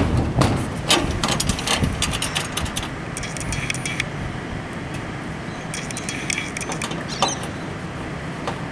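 Allen key turning the bolt that clamps an aluminium solar-panel rail to a metal roof bracket: a knock at the start, then bursts of small metallic clinks and ticks, over a steady background noise.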